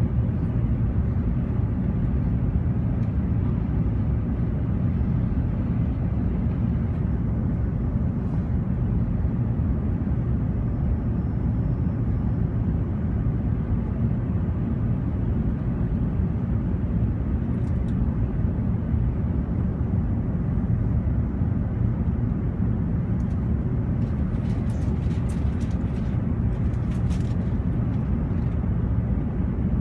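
Steady low rumble of an Airbus A380 cabin heard from the upper deck: engine and airflow noise without change, with a few faint clicks near the end.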